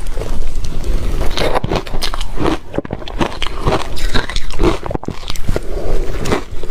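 A person biting and chewing shaved ice, loud and close, with a run of crisp crunches that follow one another irregularly.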